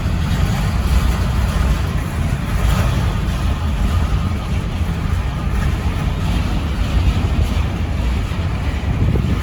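Wind buffeting the microphone in a steady low rumble, over the rolling noise of a slow intermodal freight train's cars passing by.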